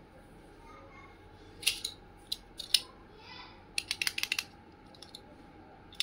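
Small plastic toy pieces clicking and tapping as a miniature plastic toy toilet is handled: a few sharp clicks about two seconds in, then a quick run of clicks around four seconds.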